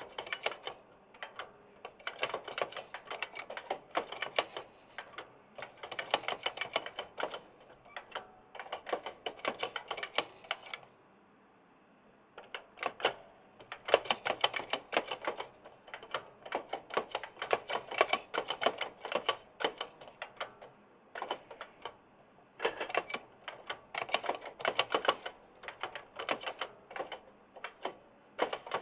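Typing on a giant mechanical keyboard with Kailh Blue clicky switches: rapid runs of sharp key clicks with a springy rattle, in bursts of a few seconds broken by short pauses.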